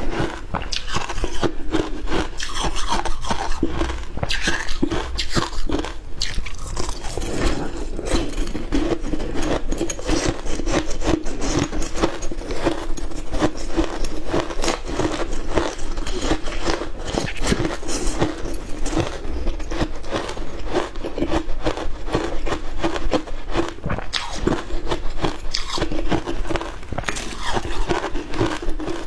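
Frozen matcha ice being bitten and chewed, a dense, continuous run of crunches and crackles.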